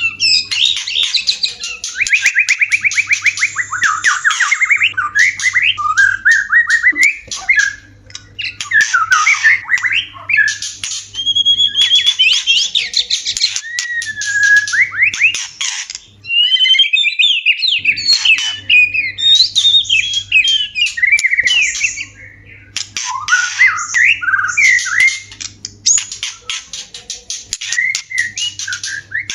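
White-rumped shama (murai batu) courtship song: a loud, fast run of varied whistles, rattling trills and harsh chattering notes, with a short pause about halfway through.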